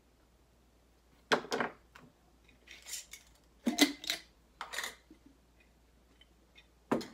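A handful of short handling sounds of craft things on a tabletop: a hot glue gun set down and a glass mason jar picked up and turned. The loudest come about a second and a half in and just under four seconds in.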